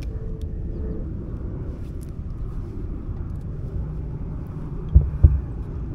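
Steady low rumble of wind buffeting the microphone, with two dull knocks about five seconds in.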